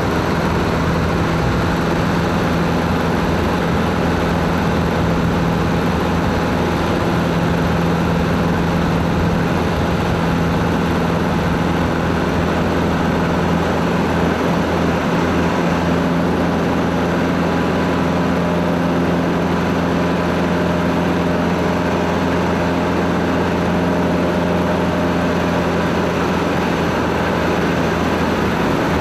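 Robin 2120 light aircraft's piston engine and propeller droning steadily in cruise, heard from inside the cockpit.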